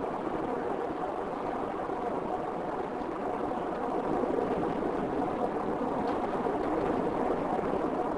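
Steady road noise of a car driving at speed: tyre and engine hiss, rising slightly about four seconds in.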